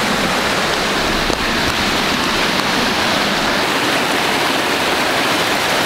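Fast-flowing mountain stream rushing, a loud, steady wash of water.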